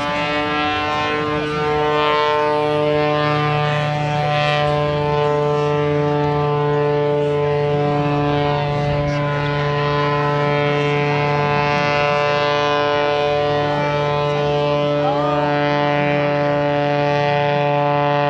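Aerobatic propeller airplane's engine at full power, a steady droning note that rises slightly at the start and then holds one pitch throughout.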